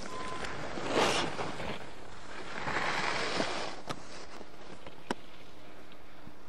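Skis carving on packed snow: a hissing swish of the edges through a turn about a second in, and a longer, softer one around the middle, with a few sharp clicks afterwards.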